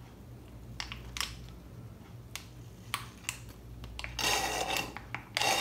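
Light clicks and plastic handling of a syringe and hose during a tubeless sealant refill, then two short hissing bursts near the end.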